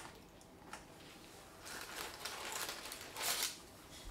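Rustling and scraping of food packaging being handled, including a foam takeout container, with the loudest rustle about three seconds in.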